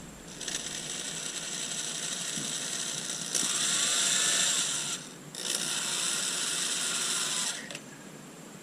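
Power drill driving a screw in two long runs, with a brief stop about five seconds in; the motor and gearbox run loudest in the middle of the first run.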